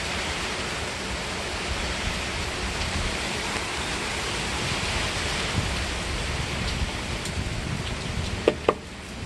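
Heavy rain falling steadily during a thunderstorm, an even hiss, with two sharp clicks near the end.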